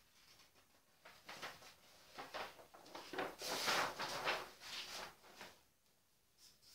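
A large flip-chart sheet of paper being lifted and turned back over the top of the pad, rustling and crinkling for several seconds, loudest around the middle. Near the end a felt-tip marker starts writing on the fresh sheet in short strokes.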